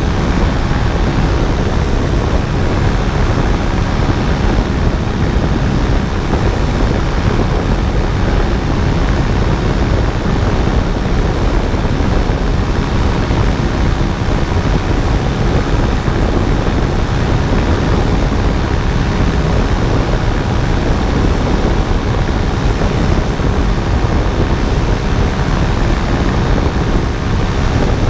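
Paramotor engine and propeller running steadily in flight, a continuous drone, heard under heavy wind rush on the microphone.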